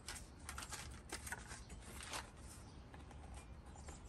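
Faint scattered taps and rustles of a small cardboard box being handled and opened by hand, over a low steady rumble.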